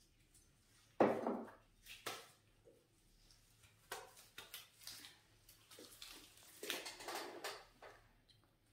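Hands massaging a face in a buccal facial massage: quiet, irregular rubbing and handling strokes on the skin, the loudest about a second in.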